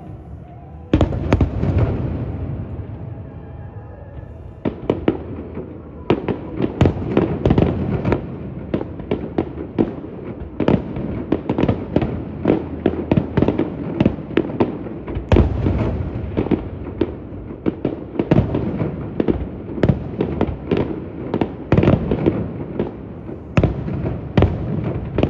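Fireworks display: a single loud bang about a second in, then from about six seconds a rapid run of bangs and crackles, several a second, each followed by a rumbling echo.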